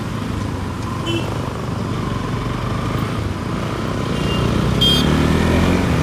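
Motorcycle engine running while riding in city traffic, climbing in pitch over the last couple of seconds as the bike accelerates. A brief high tone sounds about five seconds in.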